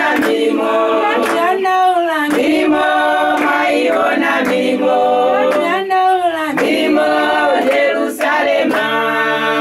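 A choir of women singing a hymn unaccompanied in a Zambian language, several voices in harmony holding long notes in short phrases.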